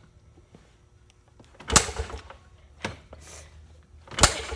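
Kickstart lever of a small kick-start engine being kicked three times, each kick a short mechanical clatter, with the engine not catching. It will not start, which the rider thinks may be from flooding it.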